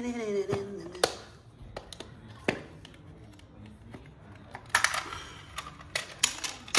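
A cordless drill briefly whirring down at the start, then scattered sharp clicks and knocks from a drill and other hand tools being handled on a rubber stable mat, with a cluster of clicks about five seconds in and more near the end.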